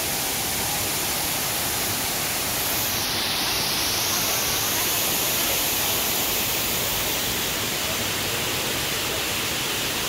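Waterfall: falling water making a steady, even rush.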